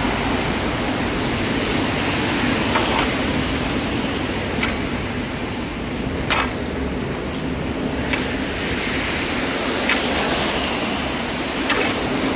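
Leaf rake drawn through shallow floodwater and soggy leaves over a clogged storm-drain grate, clearing the clog; a short scraping splash about every two seconds. Under it a steady wash of heavy rain and passing road traffic.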